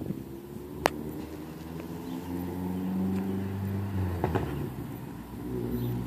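Engine of a loud race-prepped Toyota Camry running out of sight, its drone swelling to a peak about three to four seconds in, easing off, then coming back near the end. A sharp click about a second in.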